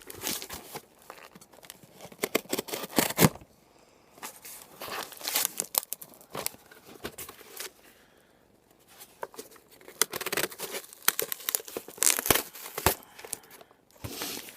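Packing tape being peeled and torn off a mailed package, with the packaging crinkling. It comes in crackly bursts, with short pauses about four and eight seconds in, and is densest near the end.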